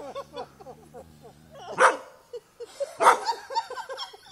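A dog barking: two loud, sharp barks about two and three seconds in, with quieter short calls before, between and after them.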